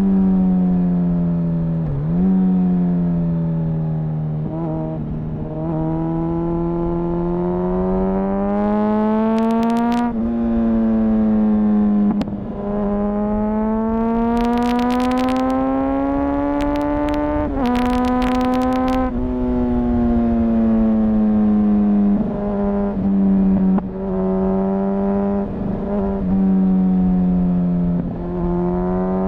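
2004 Honda CBR1000RR Fireblade's inline-four engine, restricted to 35 kW, heard onboard through its exhaust as it is ridden hard. The pitch climbs under acceleration, drops at each shift or roll-off, then pulls up again, many times over. There are a few stretches of sharp crackle near the tops of the pulls.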